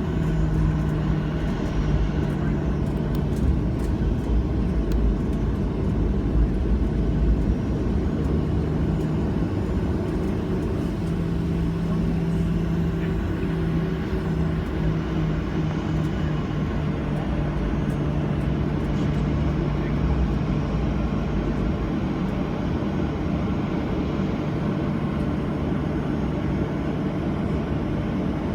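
Steady engine drone and cabin noise heard from inside a Boeing 737-800 with CFM56-7B turbofan engines, with a low steady hum throughout.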